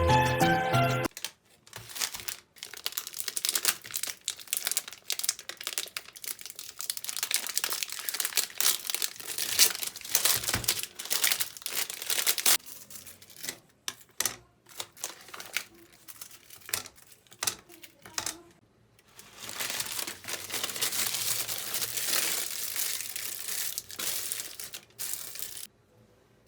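Packaging being handled and unwrapped: crinkling and rustling in irregular bursts with sharp crackles and some tearing, including a longer stretch of continuous crinkling about twenty seconds in. Background music stops about a second in.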